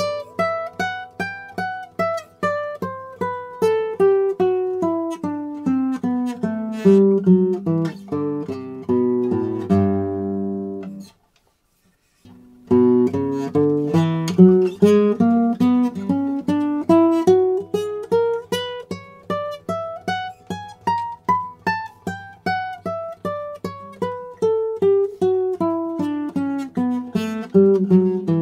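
Classical guitar played solo, a steady stream of plucked single notes over sustained bass notes, the line stepping down in pitch, then rising and falling again. The playing stops for about a second roughly eleven seconds in, then resumes.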